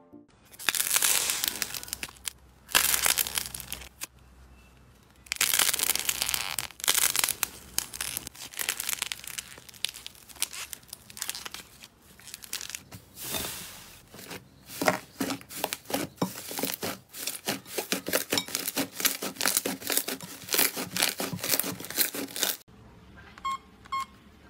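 Slime squeezed and pressed by hand, giving crunchy crackling in several stretches that turn into rapid, dense clicking in the second half. After a sudden cut near the end, a few faint electronic beeps.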